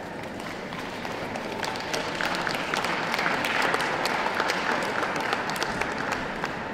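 Audience clapping, a dense patter of many hands that swells about two seconds in and keeps going.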